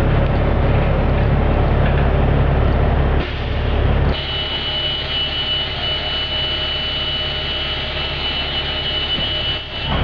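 School bus diesel engine idling, then about four seconds in the rear emergency door alarm starts a steady, high-pitched buzz that holds until just before the end. The buzzer is the warning that the emergency exit door is open.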